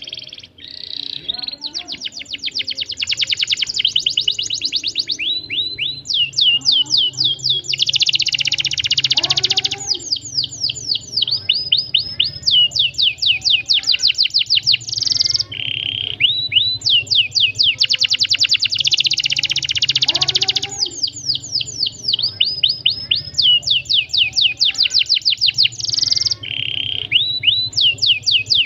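Domestic canary singing a long unbroken song of tight rolls and chirps: phrase after phrase of fast-repeated sweeping notes and dense buzzing trills, each phrase lasting a second or two before the next begins.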